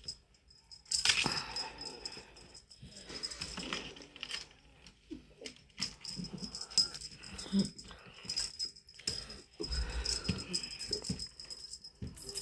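Pet cats playing, with a small bell jingling and scratchy rustling and scuffling coming in irregular spurts; the loudest spurt comes about a second in.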